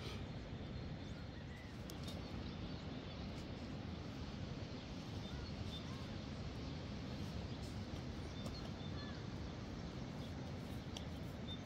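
Steady low rushing outdoor background noise, with a few brief, faint bird chirps scattered through it.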